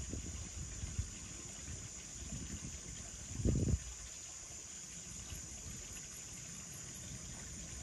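Steady, high-pitched chorus of night insects, with irregular low rumbles underneath; the loudest rumble comes briefly about three and a half seconds in.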